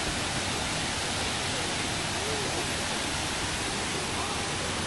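Ouzoud waterfall rushing: a steady, even wash of falling water.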